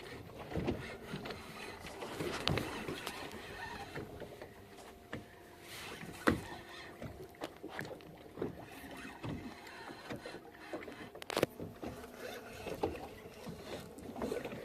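Sounds aboard a fishing boat at sea: water against the hull, with scattered sharp knocks and clicks.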